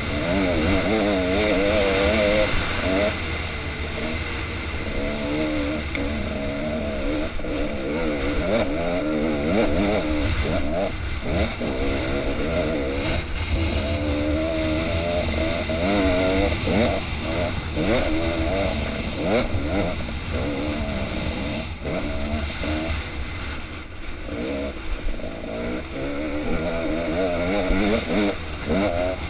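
Dirt bike engine revving up and down again and again as the rider works the throttle up a rocky climb. A steady rush of noise runs under the engine.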